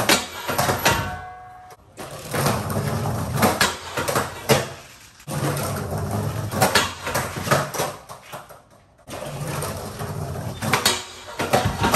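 Skateboard wheels rolling on a concrete floor, with sharp clacks of the board popping, striking the steel flat bar and landing, over about four repeated nollie smith grind attempts. Loud.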